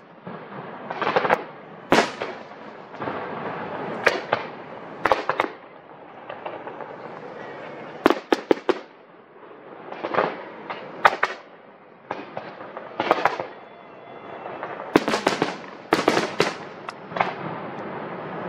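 Aerial fireworks shells bursting in an irregular barrage of sharp bangs, each with an echoing tail, over a continuous rumble. The bangs come thickest about eight seconds in and again near the end.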